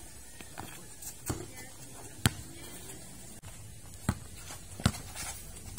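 A basketball bouncing on a concrete court: several sharp, irregularly spaced bounces.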